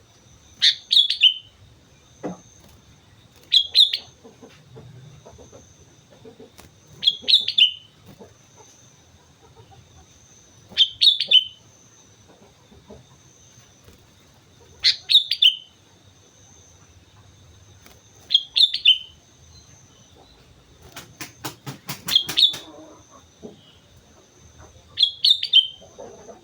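Sooty-headed bulbul (kutilang) singing short, bright, bubbly phrases, one every three to four seconds, about eight in all. A faint steady high whine runs underneath, and a quick run of clicks comes about three-quarters of the way through.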